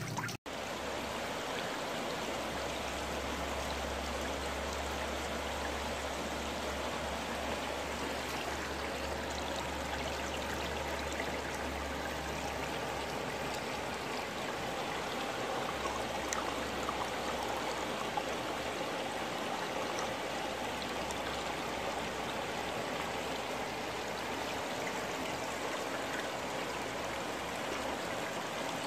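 Steady rush of water pouring from a return pipe into a large fish tank, with a low hum underneath that weakens about halfway through.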